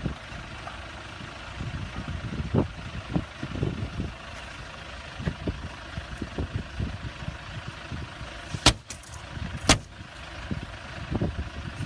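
A car engine idling under scattered knocks and thumps, with two sharp cracks about a second apart about two-thirds of the way through, the loudest sounds here.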